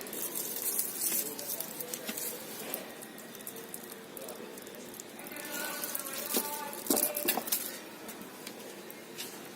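Light metallic clinks and taps of brake pads and their clips being handled and fitted into a disc-brake caliper bracket, with a cluster of sharper clicks past the middle.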